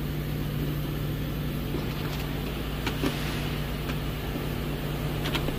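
A steady low mechanical hum, with a few faint clicks as the hybrid battery's plastic service disconnect plug is turned and seated into its service position.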